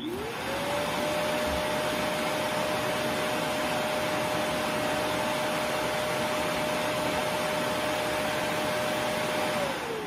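Dreametech D10 Plus auto-empty base station's suction motor sucking the dust out of the docked robot vacuum's bin and up into the bag in the top of the station. It spins up with a quickly rising whine and runs steadily with a rush of air, then begins to wind down with a falling whine near the end.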